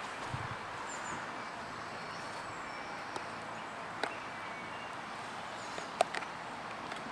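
Steady outdoor background noise, with a hum of distant traffic, faint bird calls, and a few sharp clicks scattered through, the loudest about six seconds in.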